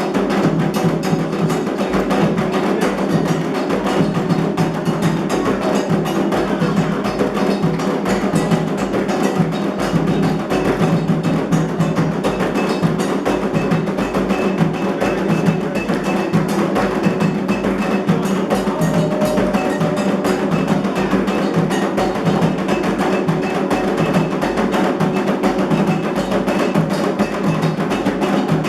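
Candomblé ritual percussion: atabaque hand drums playing a continuous, dense rhythm together with a sharp, clicking timeline instrument.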